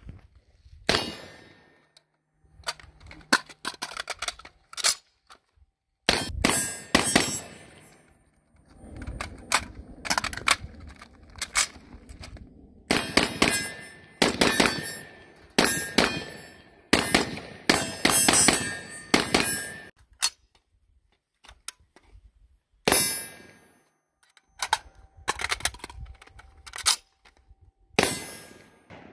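Ruger Mini-14 Ranch Rifle firing strings of rapid shots, each sharp crack followed by the ring of struck steel targets. The shots come in irregular bursts with short pauses between them.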